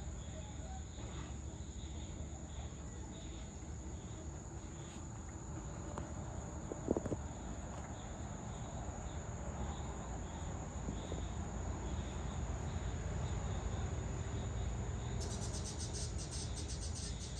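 Evening crickets and other insects chirring steadily, one high continuous trill and a pulsing chirp below it, over a low background rumble. A brief louder sound comes about seven seconds in, and a second, rapid ticking insect call joins near the end.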